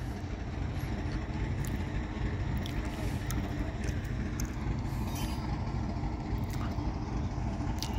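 Heavy diesel engine running steadily, a low even rumble with no change in pitch, with a few faint clicks over it.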